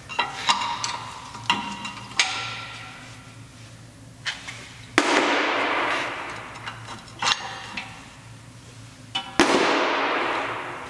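Metal clinks and knocks of hand tools against the rear brake caliper and pads of a VW Polo 6R, some with a short metallic ring. About five and nine seconds in, two loud sudden noises each fade away over about two seconds.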